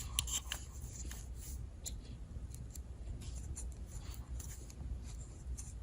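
Faint, irregular small clicks and snips of the little spring-loaded scissors on a Gordon 20-in-1 multi-tool being worked by hand, over a low steady hum.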